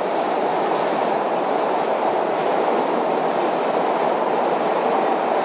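Steady rumble of a SEPTA subway car running along the track, heard from inside the car.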